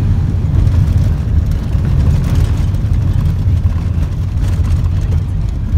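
Steady low rumble of a car driving along, heard from inside the cabin: engine and tyre noise with no distinct events.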